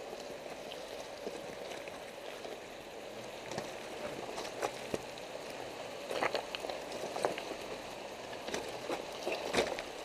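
Mitsubishi Pinin's tyres rolling slowly over creek-bed rocks and gravel, a steady crunching with irregular sharp pops and clicks of stones, more of them from about four seconds in.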